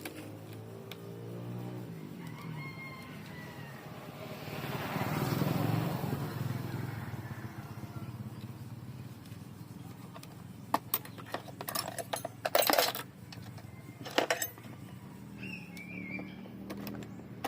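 A rooster crowing in the background. A swelling noise peaks about five seconds in, and a run of sharp clicks and rattles comes about eleven to fourteen seconds in.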